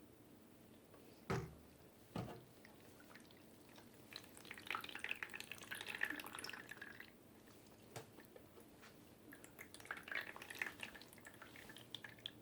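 Water poured over a TG Sambo TG-K7000 gaming keyboard and dripping, in two splashy spells with many small drips. There are two dull knocks near the start.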